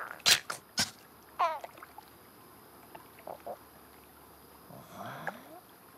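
Cartoon sound effects: two sharp knocks about half a second apart, then a short wavering cry. A few faint blips and a low rising glide follow later.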